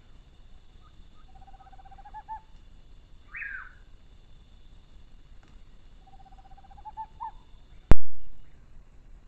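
Night animal calls: a fast trill ending in a couple of accented notes, a short falling call, then the trill again, over a steady high hum. A single sharp, loud click comes near the end.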